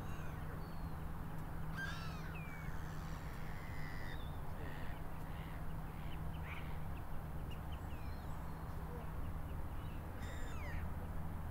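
Scattered bird calls, short chirps and harsher calls every second or two, over a steady low hum.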